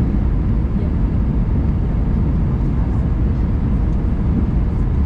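Steady cabin noise inside an Airbus A319 in flight: the even drone of its CFM56 jet engines and rushing air, strongest at the low end.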